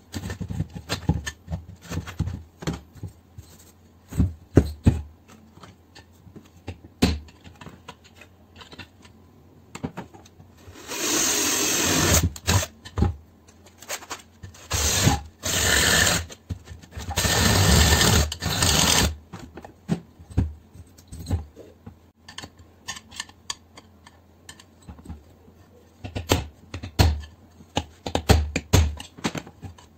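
Cordless drill running in three short runs of a second or two each, around the middle, working on an aluminium air compressor block. Scattered clicks and knocks of tool handling throughout. Several loud hammer blows near the end, driving a screwdriver or chisel against the compressor's finned cylinder.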